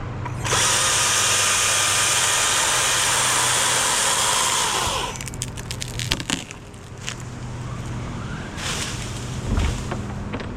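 Chainsaw cutting through pecan wood for about four and a half seconds, its pitch falling away as the throttle is released; a few sharp cracks and clicks follow, over a steady low engine hum.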